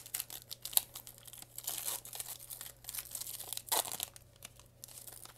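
Foil wrapper of a Pokémon trading-card booster pack crinkling and tearing in the hands as it is pulled open and the cards are drawn out: a busy run of sharp crackles and rustles.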